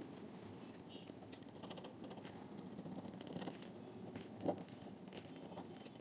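Faint scratching and small clicks of a small loudspeaker driver being cleaned by hand, ready for a new foam surround to be glued on, with one louder knock about four and a half seconds in.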